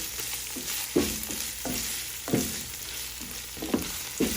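Sliced sirloin steak sizzling in oil in a frying pan while a spatula scrapes and stirs through it in about five irregular strokes, working in the oyster sauce just added.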